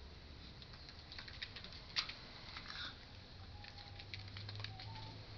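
Doberman puppies' paws and claws pattering and ticking irregularly on a wet rubber floor mat, with one sharper click about two seconds in.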